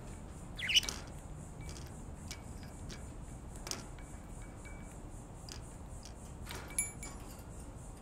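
Budgerigars (budgies) calling: a short, sharp chirp about a second in, the loudest sound, a quieter chirp near the end, and a few faint clicks between.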